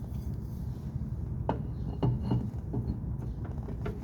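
A new EZGO golf cart wheel hub being worked by hand onto its spindle: a few separate light clicks and knocks of metal parts, the loudest about a second and a half in, over a steady low rumble.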